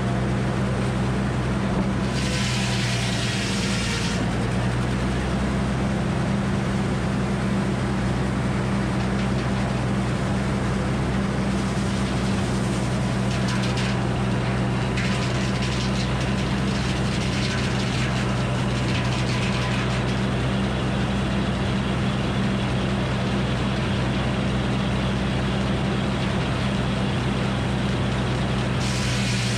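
Frick circular sawmill running steadily, its power unit humming low under the spinning blade, with the blade cutting through a red oak log a couple of seconds in and again for several seconds around the middle.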